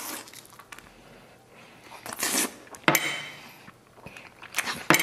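Close-miked mouth sounds of eating a piece of braised lamb rib: wet sucking and chewing noises in irregular bursts, with a sharp click about three seconds in.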